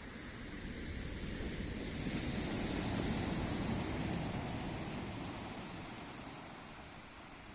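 Sea waves washing in: a swell of surf noise that builds over the first three seconds and then fades away.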